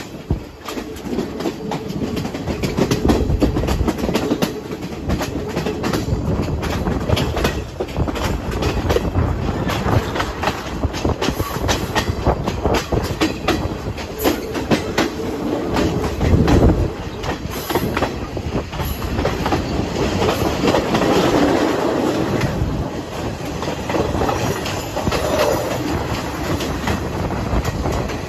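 Passenger train running, heard from an open carriage window: a steady rumble of wheels on the rails with many sharp clicks and clacks.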